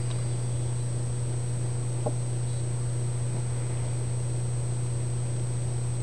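A steady low hum with a thin, steady high-pitched whine above it, and one brief short sound about two seconds in.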